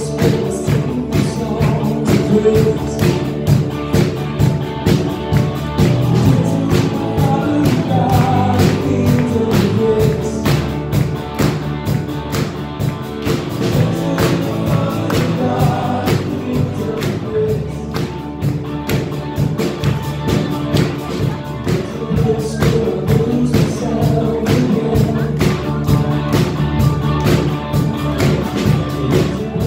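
A live band playing a song: a man sings into a microphone while strumming an electric guitar, with a second electric guitar behind him and a steady beat.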